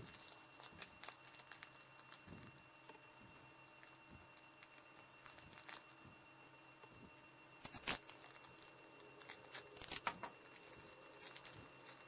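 Paper padded mailer and clear plastic bag rustling and crinkling as they are opened by hand to unpack circuit boards. The crackling comes in scattered bursts, loudest about eight seconds in and again around ten seconds.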